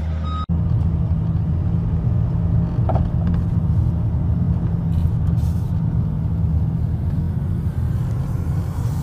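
Steady low rumble of a car's engine and road noise, heard from inside the car's cabin. It starts with a sudden cut about half a second in.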